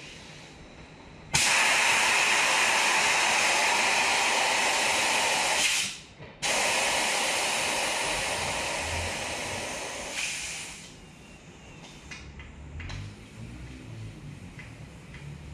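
Compressed air hissing loudly in two long blasts, the first cut off sharply after about four seconds, the second tapering away; typical of a tyre being aired up after fitting.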